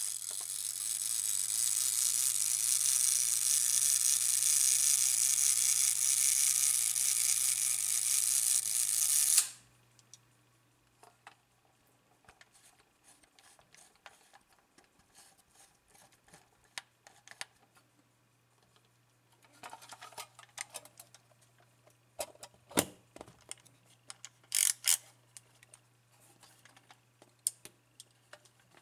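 Lubitel 166B's mechanical self-timer buzzing for about nine and a half seconds, then cutting off with the click of the shutter firing. After that come scattered small clicks as the camera's controls are worked, with a sharper pair of clicks near the end.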